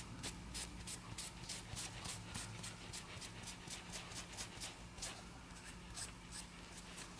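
Alcohol-dampened cloth rubbing over a stained briar pipe bowl, wiping off stain in quick faint strokes about four a second. A low steady hum runs underneath.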